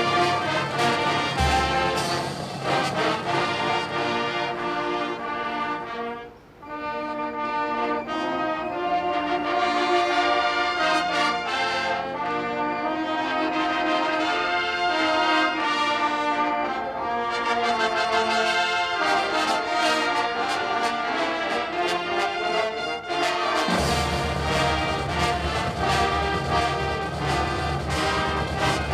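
Marching band brass playing a slow anthem in sustained chords, with a short break between phrases about six seconds in. A low drum rumble comes in near the end.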